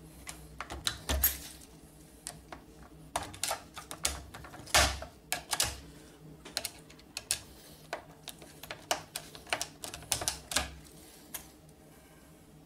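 Screwdriver tip tapping and scraping against the steel face of a snapped anti-snap euro cylinder: a run of irregular metal clicks and taps, with one heavier knock a little under five seconds in, thinning out near the end. It is probing for a lever point to get into the lock case.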